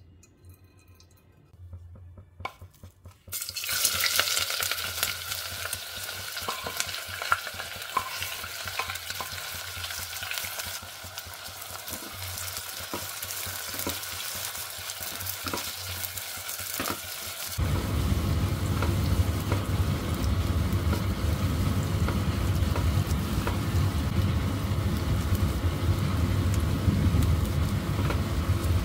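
Sliced onions hitting hot mustard oil in a heavy pot and frying with a loud sizzle that starts a few seconds in, with the clicks and scrapes of a spatula stirring them. Past the middle, a steady low rumble comes in under the sizzle and becomes the loudest sound.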